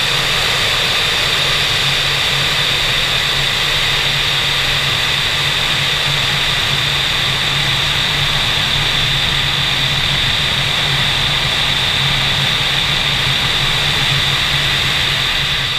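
Steady rush of airflow over a camera mounted on the wing of an ASK 21 glider in flight, with a high whistle and a low hum running through it.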